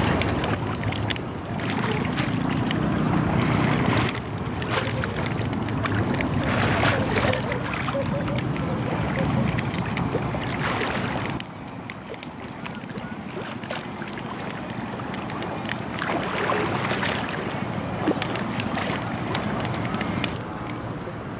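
A small motorboat's engine running close by, with wind buffeting the microphone; the low engine sound drops away about halfway through, leaving a quieter outdoor noise.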